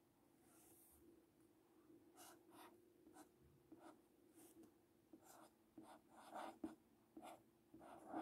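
Faint scratching of a felt-tip marker on paper as letters are written by hand, in many short separate strokes starting about two seconds in.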